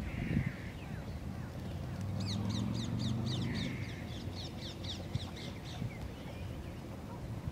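Birds calling over wind rumble on the microphone: a rapid run of high, thin, falling chirps, about four a second, for a few seconds in the middle, and two short hoarse calls, one near the start and one in the middle.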